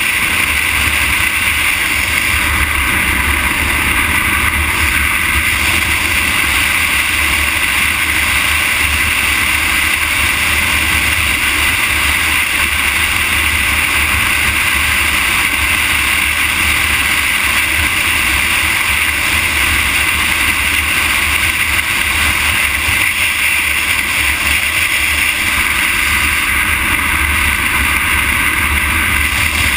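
Steady rush of wind on the microphone mixed with tyre noise on asphalt while travelling along the road; an even, unchanging noise with a low rumble underneath.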